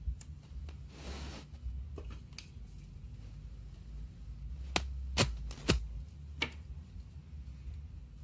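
A roll of washi tape being handled and pressed onto a paper planner page. There is a short rasp of tape peeling about a second in, then several sharp clicks and taps, the loudest a little past the middle.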